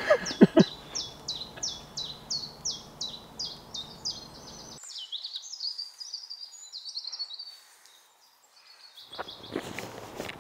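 Common chiffchaff singing its repeated 'chiff-chaff' song: a long string of short, high notes, each sliding down in pitch, about three a second. About halfway through, the notes come quicker and run together, and they fade near the end.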